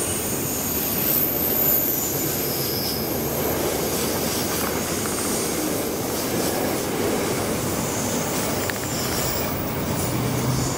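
Freight train of steel-coil wagons rolling past, with a thin, high-pitched wheel squeal coming and going over the steady running noise.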